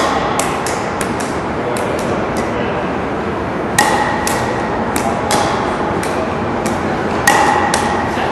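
Plastic pickleballs being struck by paddles and bouncing on a hard gym floor. The sharp, hollow knocks come irregularly, a dozen or more, and a few louder ones ring briefly. Behind them runs a steady murmur of voices.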